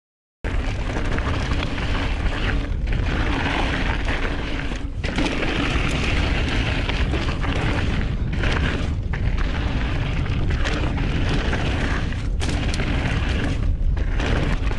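Heavy wind buffeting and rumble on a camera microphone while riding a hardtail mountain bike fast down a dirt trail. It starts abruptly about half a second in and carries on with a few brief dips.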